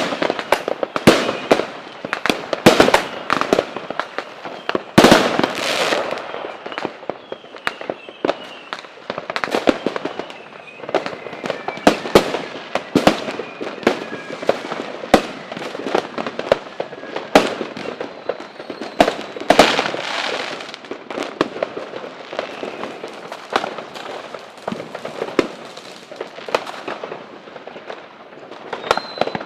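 Fireworks and firecrackers going off in a continuous, irregular barrage of sharp bangs, several a second at times, with faint whistles gliding in pitch between the blasts.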